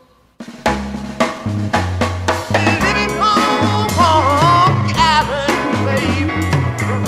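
Music: a 1960s psychedelic rock recording. After a brief pause the full band comes in with drums and a low bass line, and from about three seconds in a wavering, pitch-bending melodic line rides on top.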